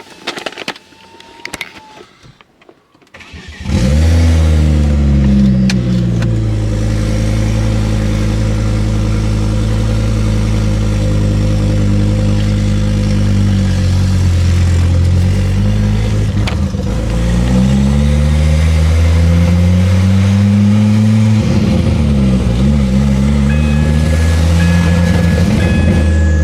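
Ford Focus ST/XR5 Turbo's 2.5-litre turbocharged five-cylinder engine starting after a few clicks, settling, then running with the revs rising and falling twice. Its exhaust is loose at the turbo where the bolts have come off, so the exhaust noise leaks out at the engine bay, and the car has a severe misfire put down to that exhaust leak.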